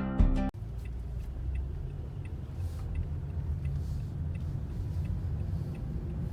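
Steady low road rumble of a car heard from inside the cabin while driving, with a few faint light ticks over it. A guitar music track cuts off abruptly about half a second in.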